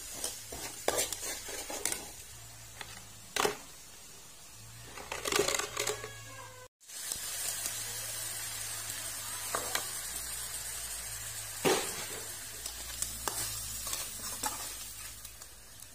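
Oil sizzling in a stainless steel wok as garlic and then chopped crabs fry, with a metal spatula clinking and scraping against the wok every second or two.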